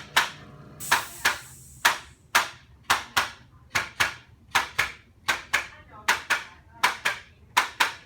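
Rhythmic open-hand slaps on a patient's body during chiropractic treatment, about twenty sharp smacks at roughly two to three a second, often falling in quick pairs.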